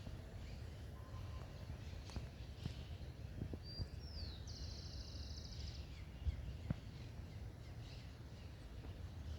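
Forest ambience: a steady low rumble under a quiet outdoor hush, with a few faint clicks. About four seconds in, a bird gives one call: a short high note sliding down, then a fast trill lasting just over a second.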